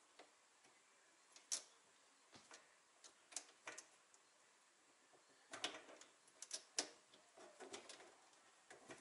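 Faint, scattered clicks and small knocks of hands fitting a braided flexible tap hose and its nut under a kitchen sink, with a cluster of sharper clicks about halfway through.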